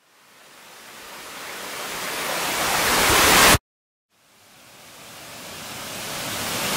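Synthesized noise riser sound effect: a hiss that swells steadily louder and brighter for about three and a half seconds and then cuts off abruptly. After a brief silence a second identical riser starts building toward the end.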